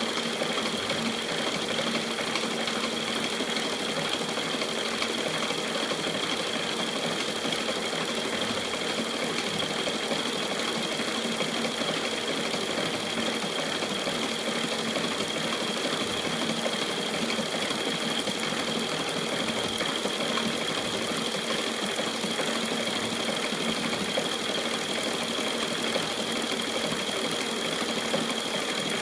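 KART E1N metal lathe running steadily, its motor and gearing giving an even mechanical drone with a high steady whine.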